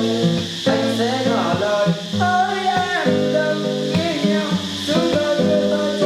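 Instrumental backing music of a Vietnamese pop song, with guitar under a lead melody line.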